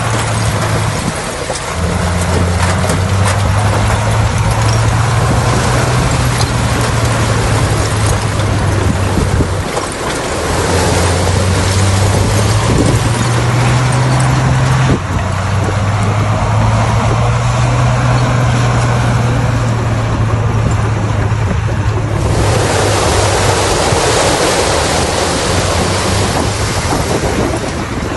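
Bulldozer's diesel engine running under working load, a steady low drone whose pitch and strength shift several times as the load changes (a brief dip about a third of the way in), over a broad rushing noise of the machine at work.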